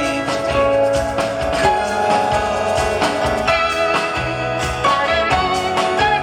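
Live rock band playing an instrumental passage without vocals: guitars ringing over steady drums.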